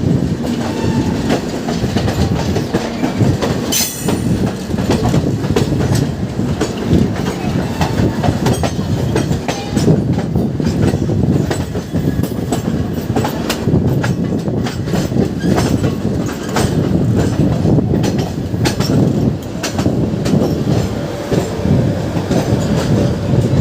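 Indian Railways express train running past at speed, its wheels clattering steadily over the rail joints with a loud, continuous rumble.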